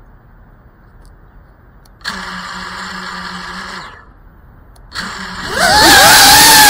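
GEPRC CineLog 35 ducted quadcopter's brushless motors: a steady low hum for about two seconds, a short stop, then the motors spin up into a rising whine that levels off loud and high as the drone lifts off.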